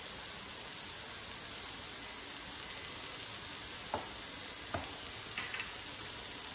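Julienned carrots sizzling steadily in a frying pan, with two light clicks about four and five seconds in.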